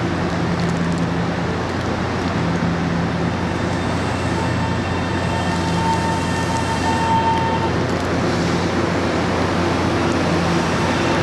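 Taiwan Railways EMU700 electric multiple unit pulling slowly into a station platform, a steady running noise with a low hum. A thin steady tone sounds for about three seconds midway.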